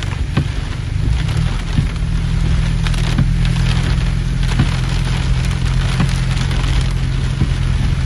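Heavy rain drumming on a car's roof and windshield, heard from inside the car, with sharp taps of single large drops over a steady low hum.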